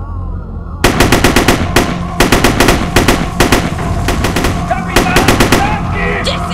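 Automatic gunfire: several rapid bursts of about ten shots a second, starting about a second in, over a low steady rumble.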